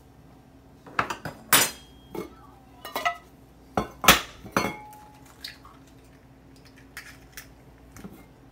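A run of sharp clinks and knocks from stainless steel bowls being handled, including an egg tapped against the rim of a small steel bowl to crack it, with brief metallic ringing after some knocks. The loudest knock comes about four seconds in; fainter ticks follow later.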